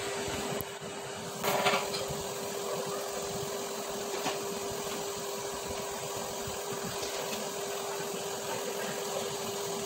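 Steady hum of workshop machinery running, holding one fixed tone throughout. About a second and a half in there is a short clatter of steel clamping blocks being set on the steel magnetic chuck around an aluminium pump housing, followed later by a couple of lighter metal taps.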